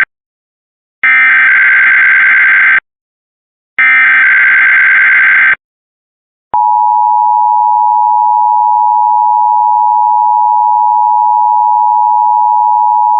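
Emergency Alert System SAME header: two bursts of screeching digital data tones, each just under two seconds long and about a second apart. About six and a half seconds in, the steady two-tone EAS attention signal (853 and 960 Hz) begins.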